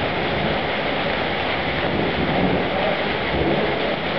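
Heavy cloudburst rain pouring down, a dense, steady hiss with a low rumbling underneath.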